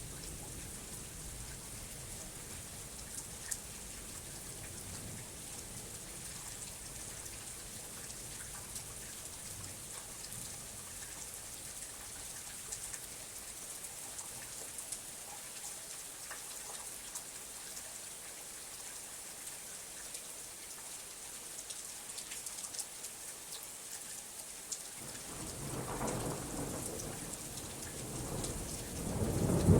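Thunderstorm recording: steady rain hiss with scattered drop ticks. A low thunder rumble builds about three-quarters of the way through and swells into a loud clap near the end.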